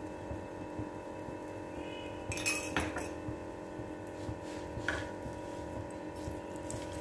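Metal spatula clinking and scraping against an iron tawa while an oiled puran poli is worked and turned, a few short clinks a couple of seconds in and again near five seconds, over a steady hum.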